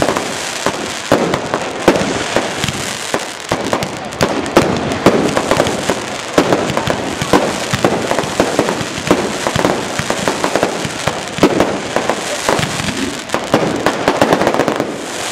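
Aerial fireworks going off in quick succession: a continuous run of sharp bangs and crackle, several reports a second at irregular spacing, with no pause.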